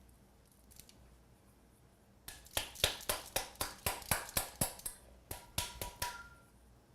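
A quick run of about fifteen sharp knocks and rattles, about four a second, lasting about four seconds, as a dry mix of oiled crushed ramen noodles, slivered almonds and sesame seeds is turned out of a bowl onto a baking sheet.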